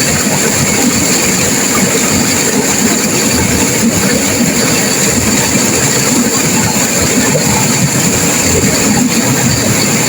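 Turbulent river water rushing and crashing over rocks: a loud, steady roar of white water without a break.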